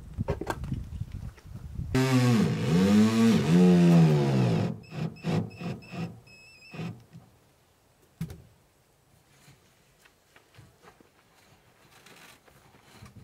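Cordless drill-driver whirring for about three seconds, its pitch dipping and recovering twice as it drives a screw into corrugated steel sheeting. A few shorter clicks and knocks follow.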